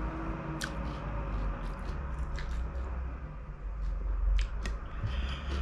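A person chewing a mouthful of food with lips closed, with a few sharp wet clicks and smacks, over a steady low rumble.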